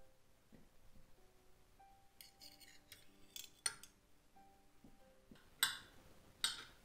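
Metal knife and fork clinking and scraping on a ceramic plate while food is cut, with a few sharp clinks, the loudest in the middle and near the end. Quiet background music with slow held notes plays throughout.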